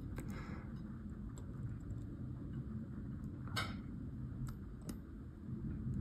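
A few small, sharp clicks over a faint low hum, the loudest a little past halfway and another near the end: metal tweezers and a soldering iron tip touching a micro switch and the key fob's circuit board as the switch is set in place for soldering.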